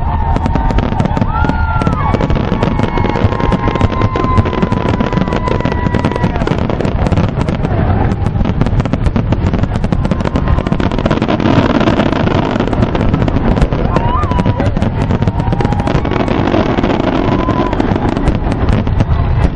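Fireworks display: a rapid, unbroken barrage of aerial shells bursting, with dense bangs and crackles overlapping throughout.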